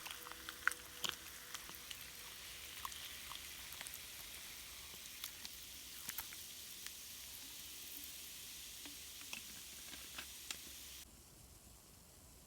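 Food sizzling in a pan: a faint steady hiss with scattered small pops, cutting off abruptly near the end.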